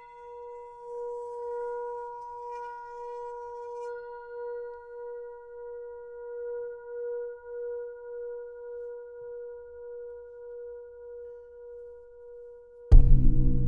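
A struck bell rings on as one steady tone with a slow wavering beat, fading gradually. Near the end a loud low drum hit starts percussive music.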